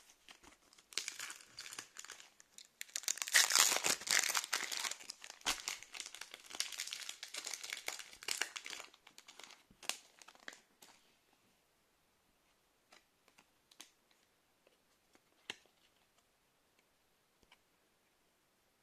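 Foil wrapper of a counterfeit Pokémon booster pack being torn open and crinkled, loudest a few seconds in. After about nine seconds it gives way to faint scattered clicks of the cards being handled.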